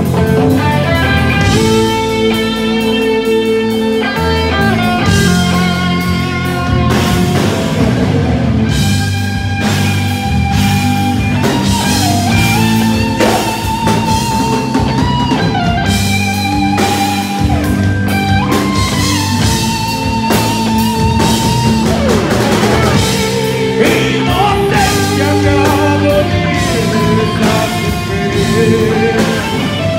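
Live metal band playing loud: electric guitars, bass guitar and drum kit, with long, wavering melodic lead lines over the rhythm.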